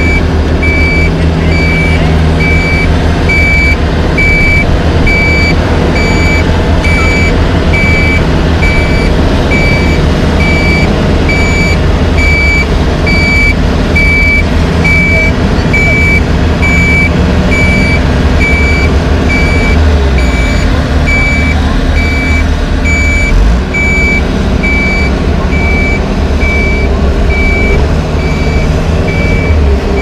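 A backup alarm beeping steadily at about two beeps a second, over the low running of diesel machinery.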